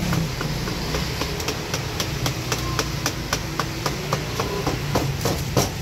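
Metal dough scraper chopping a rope of dough into small pieces on a floured tabletop: a quick, even run of sharp taps, about four a second.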